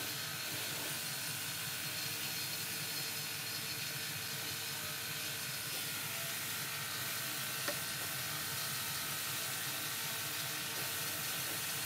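Steady hiss of compressed air from a gravity-feed spray gun spraying gloss polyurethane finish onto a wooden bookshelf, with one brief click about two-thirds of the way through.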